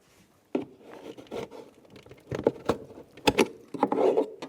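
Plastic interior door trim panel being pried off with a trim tool: irregular sharp clicks, knocks and rattles of the panel and its retaining clips, with short scrapes between, the loudest knock a little past the middle.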